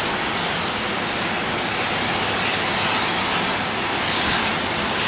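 Airliner jet engines running: a steady, even rush of noise with no clear tone and no sudden events.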